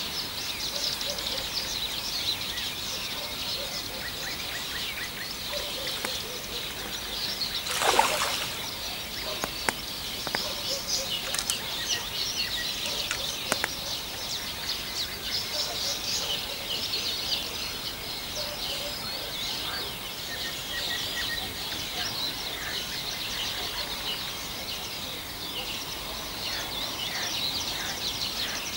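Morning chorus of many songbirds singing together, a dense, unbroken twittering of high chirps. About eight seconds in comes one short, louder noise.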